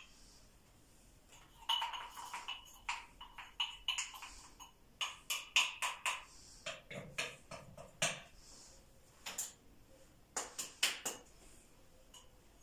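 Irregular light taps and clinks of a utensil against a food processor's bowl as dry ingredients are spooned in, some with a short ringing, in clusters starting about two seconds in and easing off near the end.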